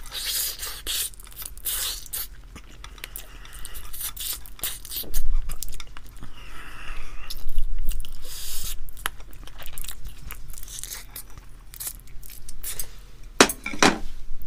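Close-miked chewing and biting of spicy grilled chicken wings: wet, crunchy mouth sounds with many short crackles and clicks, and a louder cluster of crunches near the end.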